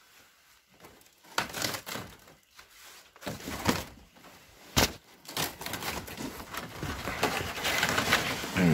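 Footsteps climbing old wooden stairs: irregular knocks and scuffs, the loudest a sharp knock about five seconds in, growing denser near the end.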